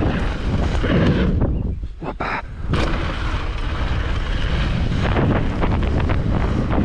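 Mountain bike rolling down a dirt trail: a steady rumble of tyres and wind buffeting the microphone, with rattles and knocks from the bike about two seconds in and again around five seconds.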